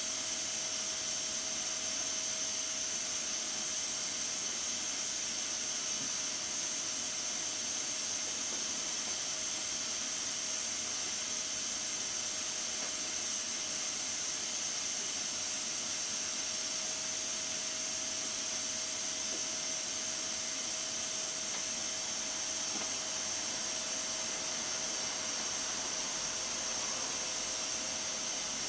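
Stovetop pressure cooker up to pressure, steam hissing steadily from its pressure valve with a faint steady whistle tone underneath.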